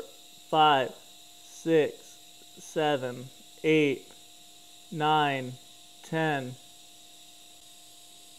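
A man counting aloud slowly, about one number a second, keeping time for his filler-rod dips. Under the counting runs the steady hum of a TIG welding arc on thin stainless exhaust tubing.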